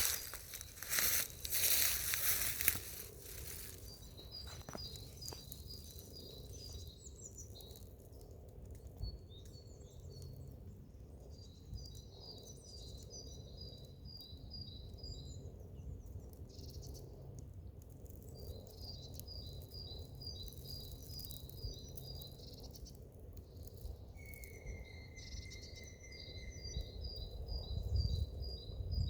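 Outdoor ambience with repeated trains of rapid high chirps from a small animal calling, over a low rumble, after a few loud rustling noises in the first seconds. One steady high whistle-like tone lasts about three seconds near the end.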